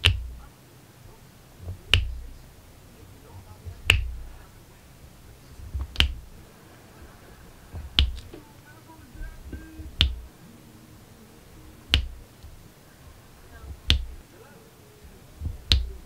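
Sharp clicking taps at an even pace of about one every two seconds, each with a low thud: a diamond-painting drill pen pressing resin drills onto the adhesive canvas.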